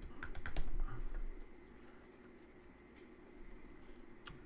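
Computer keyboard keys typed in a quick run of clicks for about a second and a half, entering a short terminal command, then a single sharp click near the end.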